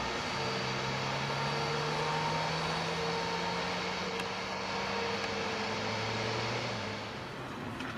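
Boeing 747-400F freighter's four turbofan engines running at taxi power: a steady jet rush with a low hum of held tones that shift slightly in pitch, easing a little about seven seconds in.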